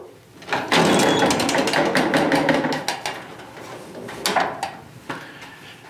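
Main door of an Automatic Products snack vending machine being unlocked and swung open: rapid metallic clicking and rattling for about two seconds, then a single sharp clack a little after four seconds.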